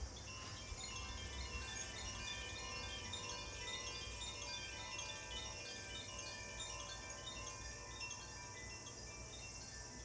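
Makino-style healing chimes being rung continuously: a dense tinkling of many quick, high notes over lingering ringing tones.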